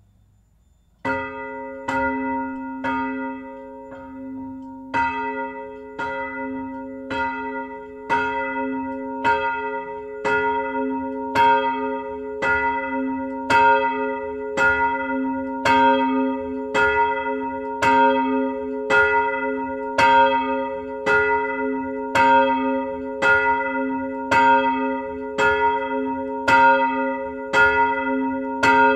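A single motor-swung bronze church bell, one of a 1922 KID Jesenice peal, ringing after a silent first second. Its clapper strikes about once a second at an even pace, each stroke ringing on into the next so that a low hum sounds throughout.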